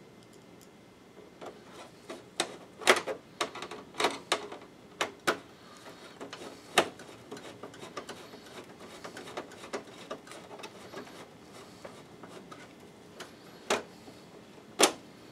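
Sharp clicks and knocks of plastic and metal parts being handled as screws go back into a projector's casing, with a run of small quick ticks in the middle. The louder knocks come in a cluster early on, and there is another pair near the end.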